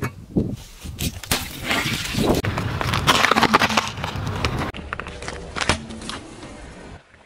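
Car tyre rolling slowly over small objects on asphalt and crushing them: dense crunching and crackling with sharp snaps, breaking off abruptly a little past halfway and starting again.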